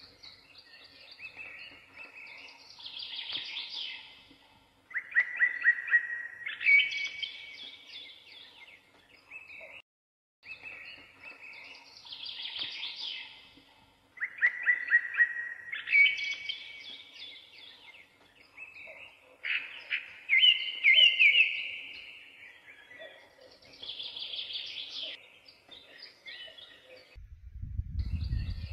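Songbirds singing: a run of chirps and quick trills, some loud and sharp, with the same phrases seeming to come back about every ten seconds and a brief drop-out near the middle.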